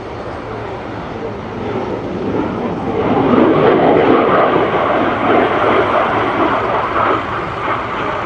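Alenia Aermacchi M-346 Master jet trainer's twin turbofans in a display pass: a rushing jet noise that swells to its loudest about three seconds in, then eases off slowly toward the end.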